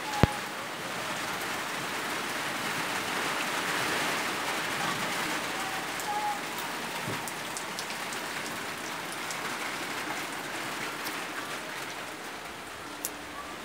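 Heavy rain falling on a corrugated metal roof and pouring off its edge, splashing into standing water on the ground, a steady hiss throughout. A sharp click sounds right at the start.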